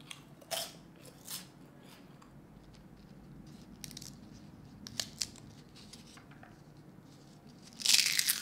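Crisp rice paper snapping with a few short, sharp cracks, then a loud burst of crunching near the end.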